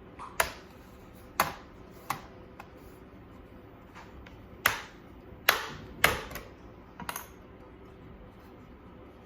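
A series of sharp clicks and taps, about seven in all, irregularly spaced.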